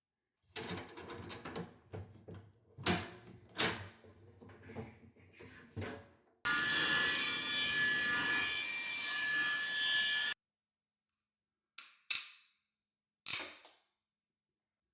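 Wooden parts knocking and scraping as they are handled, then a power tool running steadily for about four seconds and stopping abruptly, followed by two short sharp bangs.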